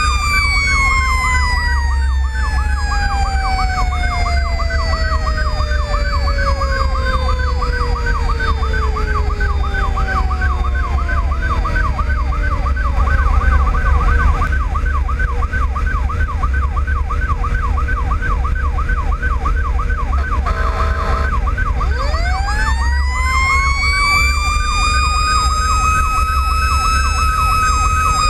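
Fire apparatus sirens while responding. A mechanical siren coasts down in a long falling wail, then spins back up about three-quarters through and holds its high pitch. Meanwhile an electronic siren yelps rapidly, with a short horn blast shortly before the mechanical siren winds back up and a steady diesel and road rumble underneath.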